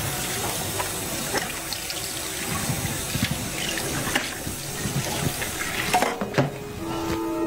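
Tap water running into a stainless-steel kitchen sink while dishes are washed, with a few light knocks of plates. Music comes in near the end.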